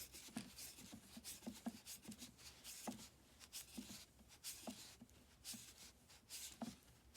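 Plastic furniture tubes being handled and twisted by hand into a shelf board: faint, irregular scraping and rubbing with small knocks, several a second.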